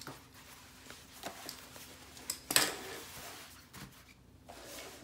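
Shiny synthetic fabric of a barber apron rustling as it is unfolded and smoothed flat by hand, in irregular swishes with one louder rustle about halfway through.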